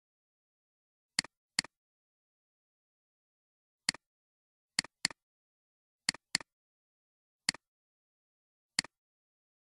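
Computer mouse button clicks: single clicks and quick double-clicks, nine in all, each a sharp click followed by a softer release click.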